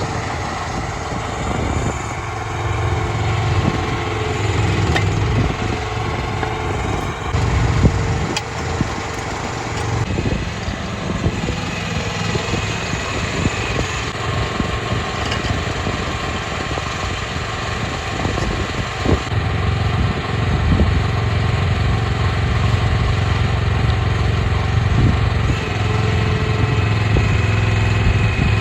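Mini excavator engine running under varying load while it works at pulling fence posts, with a few sharp knocks.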